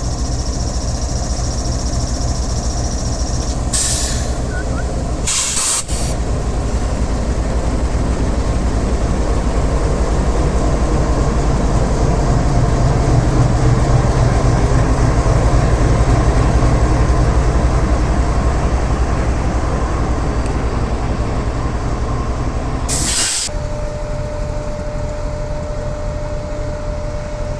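GEU 40 diesel locomotive engine running with a steady low throb that grows louder in the middle. Short bursts of hiss break in about four, six and twenty-three seconds in.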